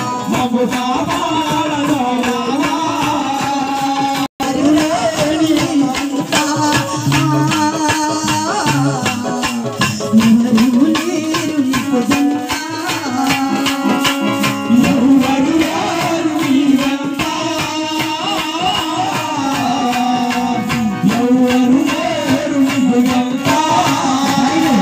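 Chekka bhajana: a group of men striking wooden chekka clappers in a steady, rapid clacking rhythm under sung devotional melody. The sound cuts out for an instant about four seconds in.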